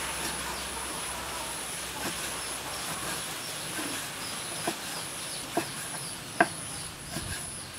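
Meat cleaver chopping raw pork on a wooden cutting board: a few single sharp knocks about a second apart, mostly in the second half, the loudest a little past six seconds in. Behind them runs a high, evenly pulsing insect chirr.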